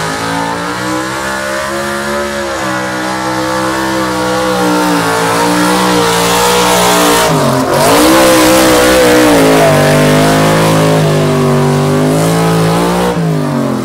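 A 388-cubic-inch small-block Chevy V8 in a pulling truck, running hard at high revs under load. Its pitch dips sharply and climbs back about halfway through, then drops away near the end.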